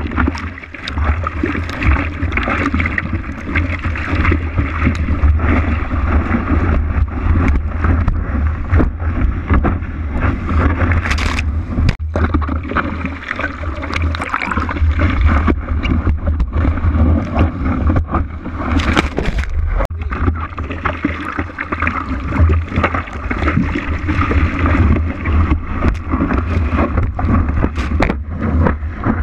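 Ocean water rushing and splashing over a surfboard-mounted action camera while a surfer paddles and rides a wave, with a low rumble of water buffeting the camera housing and many sharp splashes.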